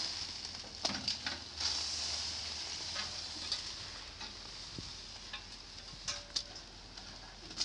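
Thick plastic sheeting rustling and crinkling as it is pulled and handled against a truck's cargo bed, with scattered sharp crackles.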